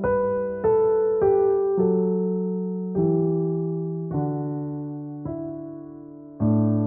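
Slow piano music: notes and chords struck about once a second, each left to ring and fade before the next.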